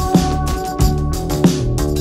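Background music with a steady drum beat over held notes.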